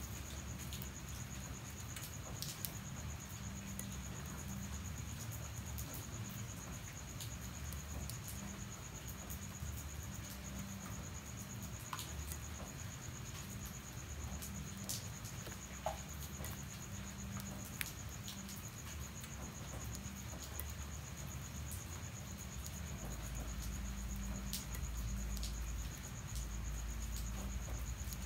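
Crickets chirring steadily on one high tone, with scattered drips and light patter of rain. A low rumble comes in near the end.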